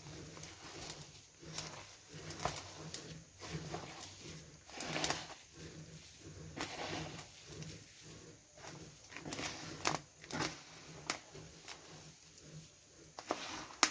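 A hand kneading and squeezing damp chicken feed mash of rice polish, coconut residue and chopped greens in a basin: irregular rustling and scraping with a few sharper clicks, the mash being worked to a ball-forming consistency.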